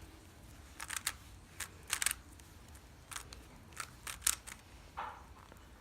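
Rubik's Cube being twisted fast by hand in a speed solve: quiet, irregular clicks and snaps of the plastic layers turning, some in quick clusters.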